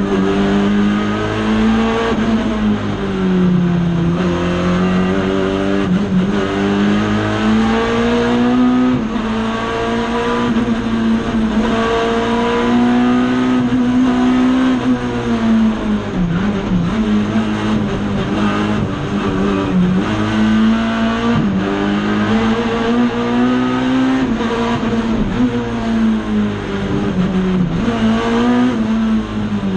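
Race car engine heard from inside the cockpit, revving hard and rising and falling in pitch again and again through gear changes and corners, with short drops where the driver shifts or lifts.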